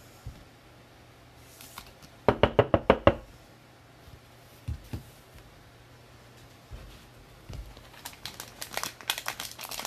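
Trading cards and card packs handled on a table: a quick run of about seven sharp knocks about two seconds in, a few scattered light taps, then rapid crinkling from about eight seconds on.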